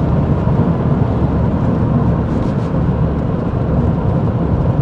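Cabin sound of a 2013 Ford Focus ST cruising: a steady low drone from its 2.0-litre turbo four-cylinder mixed with tyre rumble over a bumpy road surface.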